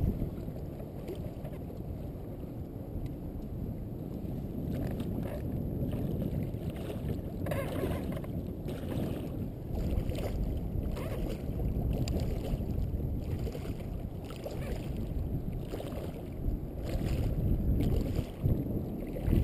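Swim fins kicking at the water's surface from a float tube, splashing roughly once a second from about five seconds in, over a steady low rumble of wind and water on the microphone.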